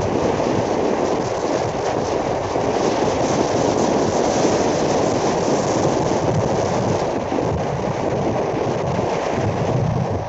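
Steady running noise of a moving train: a dense, even rumble that holds without a break.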